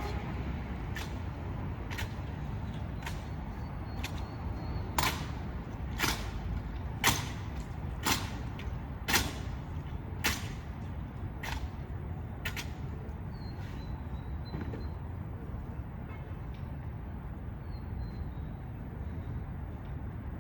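A rifle drill team performing: about a dozen sharp cracks of rifle and drill movements, roughly one a second, that stop about twelve seconds in, over a steady low outdoor rumble.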